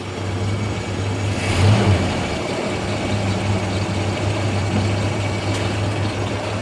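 A 1950 Chevrolet 3100 pickup's 216 straight-six engine running after an oil change, with fresh oil in the crankcase. It rises briefly in loudness and pitch about a second and a half in, then settles to a steady idle.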